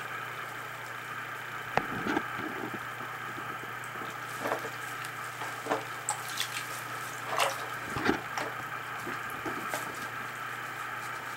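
Bathwater splashing and dripping in short irregular bursts as a cat in a swim ring is held and rubbed in the tub, over a steady low hum.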